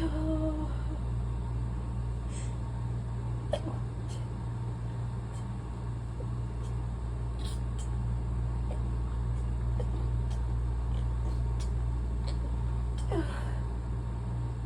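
Faint breathy catches from a woman holding back sneezes: a short pitched hitch right at the start and a sharper catch of breath about thirteen seconds in, over a steady low hum.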